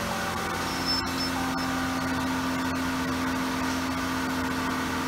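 Ram 1500's 3.6L Pentastar V6 running at a steady raised idle of about 1,800 rpm just after starting, heard from inside the cab. A single click about a second in.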